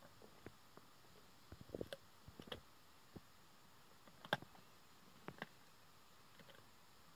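Male lion chewing an antelope carcass: scattered sharp cracks and clicks of bone and flesh being crunched, in short clusters, the loudest about four seconds in, over otherwise near silence.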